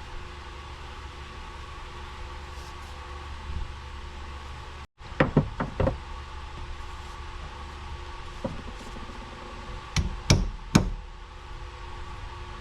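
Hammer blows on a wheel hub as a bearing race is driven in: a quick run of about four strikes about five seconds in, a light tap, then three more strikes about ten seconds in, over a steady low hum.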